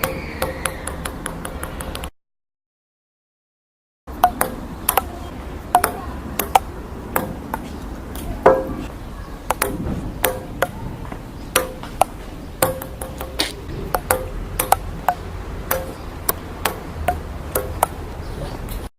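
A table tennis ball bouncing with quickening clicks as it settles, then after a couple of seconds of silence a long rally: the ball clicking off paddles and table about two to three times a second, each hit ringing briefly.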